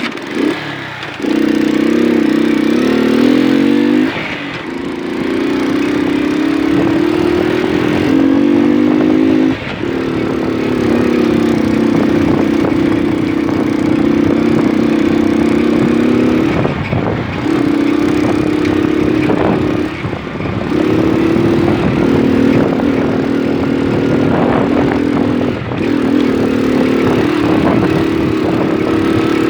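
Moped engine running under way, loud and steady, its pitch stepping up and down with the throttle and dropping briefly several times.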